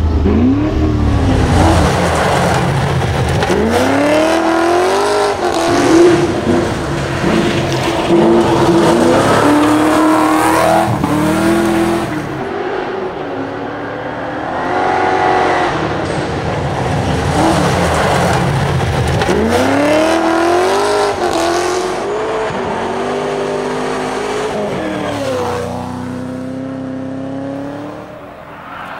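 Holden VE Commodore V8 rally car engine revving hard, its pitch climbing and dropping again and again as it accelerates, shifts gear and lifts for corners. The car is loudest in the first half and quieter later on.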